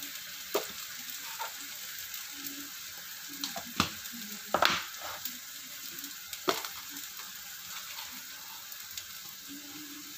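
Sweet soy sauce, chilies and garlic sizzling steadily in hot oil in a wok, with a metal spatula stirring and clicking sharply against the pan several times, loudest about four seconds in.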